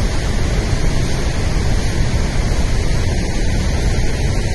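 Floodwater rushing, a loud, steady, unbroken noise heaviest in the low end.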